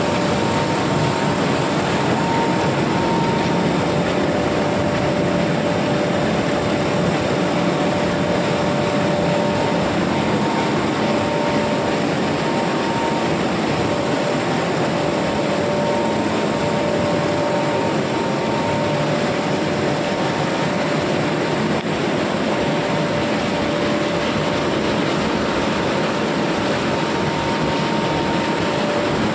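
Soya chunk plant machinery running: the electric motors and blowers of the nugget dryer and conveyor make a steady, even noise, with a faint whine that comes and goes.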